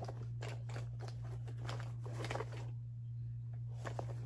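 Scratchy rustling and light clicks of small items being handled and pushed into a bag, in a few short bouts, over a steady low hum.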